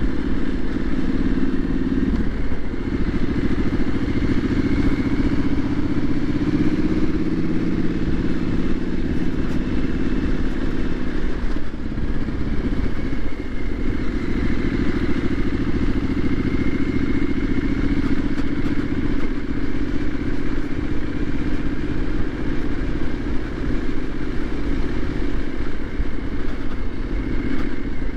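Triumph 900 motorcycle engine running under way at town speed, heard from the rider's seat with wind noise. The engine note changes about two seconds in, eases off around twelve seconds, then pulls steadily again.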